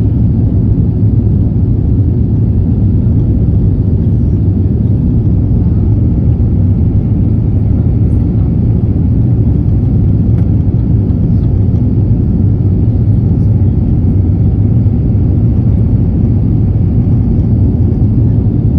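Inside the cabin of an Airbus A350 climbing out just after takeoff: its Rolls-Royce Trent XWB engines make a steady low drone with airflow noise, even throughout.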